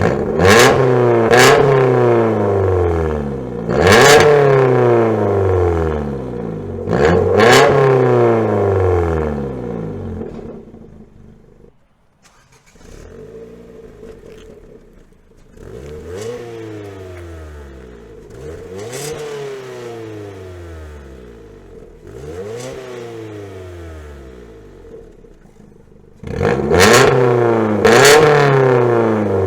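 Ford Fiesta MK7 engine revved in repeated blips through a Guerrilla Bypass cut-out exhaust, each rev climbing and falling back. The first several revs are loud, with the bypass valve open. Before halfway the sound drops to a much quieter, stock-like exhaust note, as with the valve closed. Near the end it turns loud again as the valve reopens.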